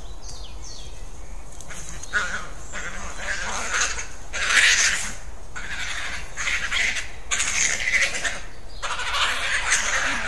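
European badgers fighting: harsh, noisy screaming calls in a run of bursts about a second long, starting about two seconds in, the loudest near the middle.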